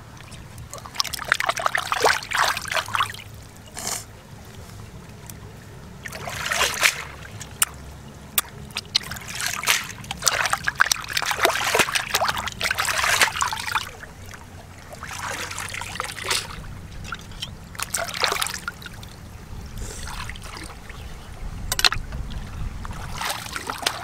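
Water splashing and trickling in irregular bursts as hands wash and clean a squid in shallow stream water.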